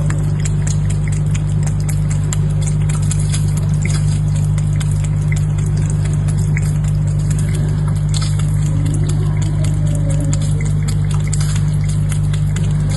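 Aquarium pump running with a steady low hum, with water trickling and a patter of small irregular clicks over it.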